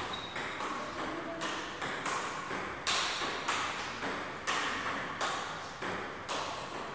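Table tennis rally: the ball clicking off the paddles and bouncing on the table in quick, even alternation, about two or three hits a second. Each hit rings with a short echo off the hall.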